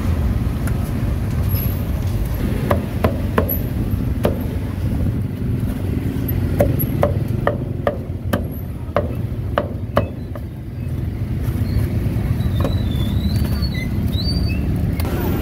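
Cleaver chopping grilled meat on a round chopping block: about a dozen sharp chops between roughly three and ten seconds in, over a steady rumble of street traffic.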